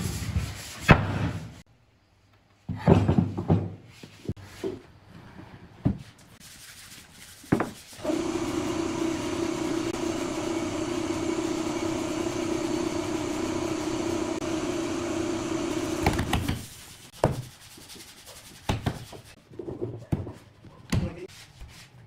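Workshop knocks and clatters of wood and tools, then an electric power tool motor running steadily for about eight seconds and switching off, followed by more knocks.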